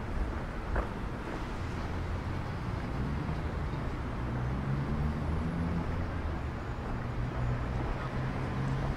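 Vehicle engine noise: a steady low rumble, with a low engine hum growing stronger about three seconds in.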